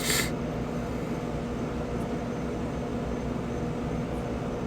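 Steady low mechanical hum with a few fixed tones, like a fan or air-conditioning unit running, with a brief hiss right at the start.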